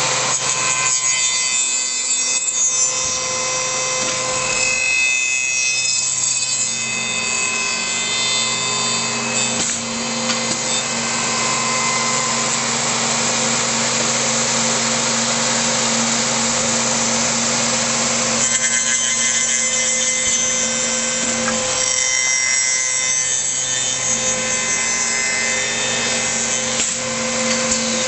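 MX3810B tenoning machine running, its cutters machining wood. There is a steady motor hum with a few held tones. The sound changes in several stretches, as the cutters pass through workpieces.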